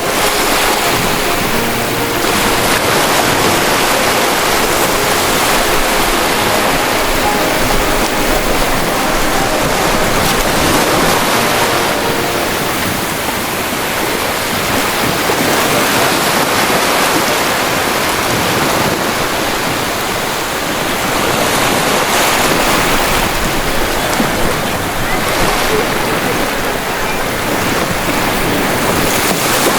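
Ocean waves breaking and washing ashore in a continuous rush of surf that swells and eases every several seconds.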